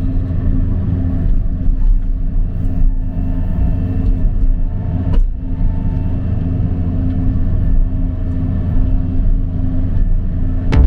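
John Deere 50G mini excavator's diesel engine running steadily, heard from inside the cab, with one short click about halfway through.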